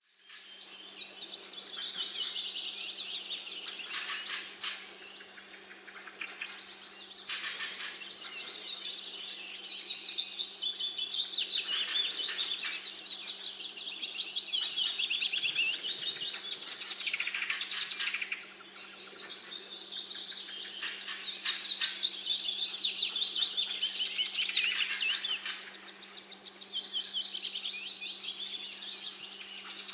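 Songbirds singing, fast twittering and trilling phrases of a few seconds each, one after another, with a faint steady low hum beneath.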